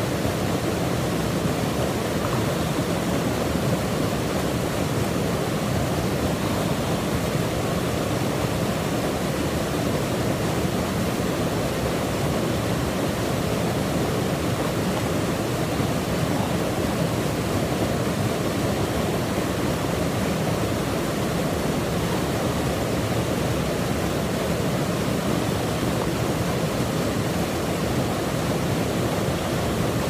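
Small woodland waterfall pouring into a pool: a steady, unbroken rush of falling water.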